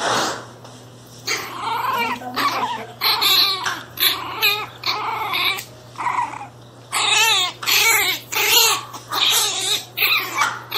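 Pinscher puppy yelping and whining in a run of high, wavering cries, short bursts with brief gaps, starting about a second in.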